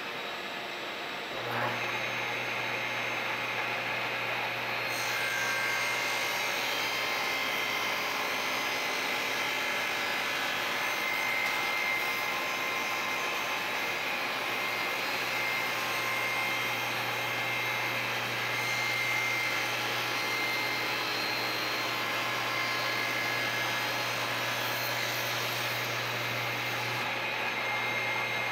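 A shop vacuum runs steadily for dust collection, and about a second and a half in a table saw starts up and runs. From about five seconds in the blade cuts through the hardwood end-grain cutting board, which is pushed across it on a crosscut sled, trimming its edges. The saw shuts off near the end.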